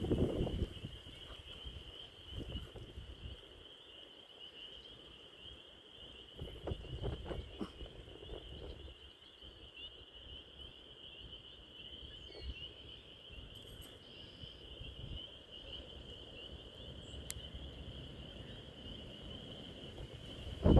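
Chorus of spring peepers: many overlapping high, short peeps running on steadily. A few low rumbles come through now and then, the strongest at the very start and about seven seconds in.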